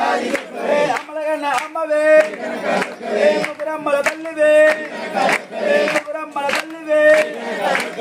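A crowd of devotees chanting in unison: short phrases on held notes that repeat again and again, with sharp rhythmic beats between them.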